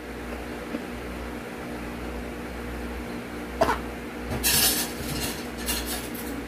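A wooden utensil clicks once against a plate about three and a half seconds in. Then comes scraping and rustling as a tangle of pancit canton noodles is lifted from the plate. A steady low hum runs underneath.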